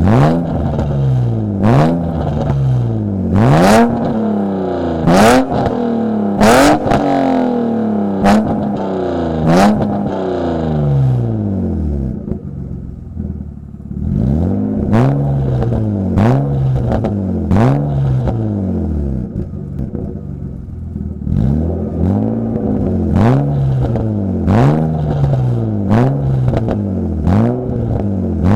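A BMW engine revved through its exhaust in repeated quick blips, about one every second and a half. Each rev climbs fast and falls back slowly, with a sharp crack at the top. The revving drops to a lower, quieter run for a couple of seconds around the middle, then starts again.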